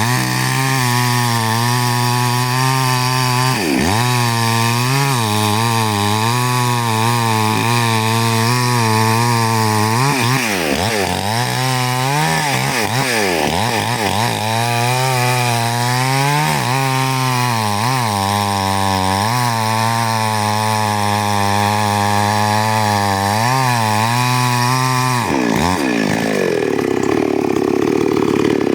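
Chainsaw running hard at high revs, its engine pitch dipping and recovering every few seconds as it cuts wood. Near the end the engine tone drops away into a rougher, noisier sound.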